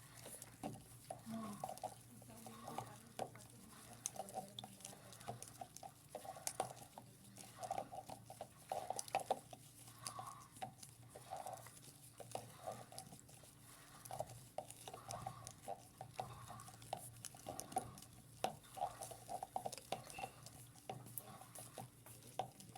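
Washing machine running, with water sloshing and splashing irregularly in the tub over a faint steady hum.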